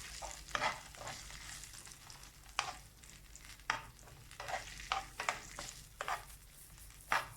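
Chicken pieces in sauce frying in an oiled pan with a faint sizzle, while a utensil stirs and scrapes the pan in irregular short strokes.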